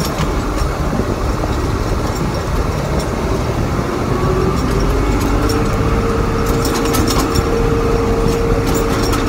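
Tractor engine running under way, heard from inside the cab: a steady low rumble with a whine that rises in pitch about four seconds in and then holds steady. A few light rattles near the end.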